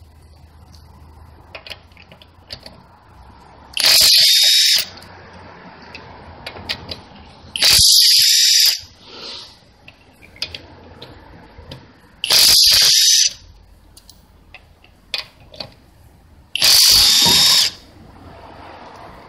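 Chinese-made cordless impact wrench on its high (H) setting hammering car wheel nuts loose: four loud bursts of about a second each, a few seconds apart. Each burst breaks free a nut tightened to 120–140 N·m. Small clicks between.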